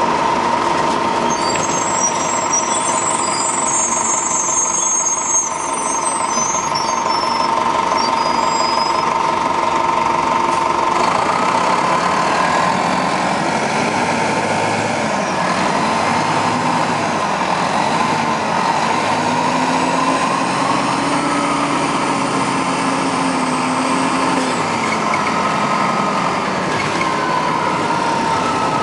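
1996 Nova RTS transit bus with a Detroit Diesel Series 50 diesel engine, running steadily at first. About a third of the way in the pitch starts to glide, rising and falling, as the bus works under way.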